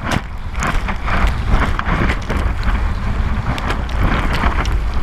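Whitewater from a broken wave rushing and splashing over a bodyboard, right against the GoPro's housing: a loud churning rumble full of crackling spray and buffeting.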